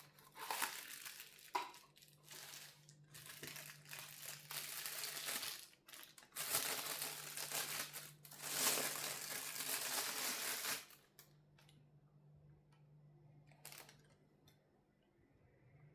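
Packaging crinkling and rustling in irregular bursts as timing-kit parts are handled and unwrapped, loudest over a few seconds in the middle, then stopping about two-thirds of the way through with one brief rustle after.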